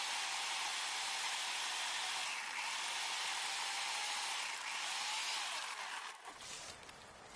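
Inexpensive Harbor Freight electric chainsaw running and cutting through a sapling's trunk: a steady motor whine over the hiss of the chain. It stops about six seconds in as the stem gives way, leaving faint crackles.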